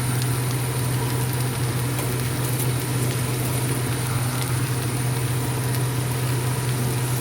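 A steady low motor hum, with faint crackling of cabbage sizzling as it cooks down in a frying pan.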